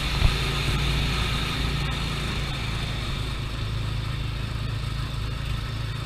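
Small gasoline engine of a Tomorrowland Speedway car running steadily at cruising speed, heard from the driver's seat, with one brief knock about a third of a second in.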